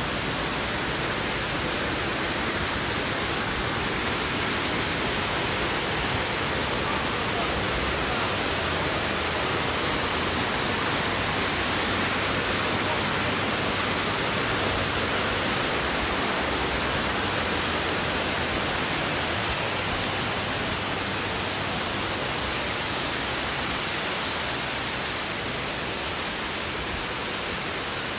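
Waterfall rushing, a steady even roar of falling water.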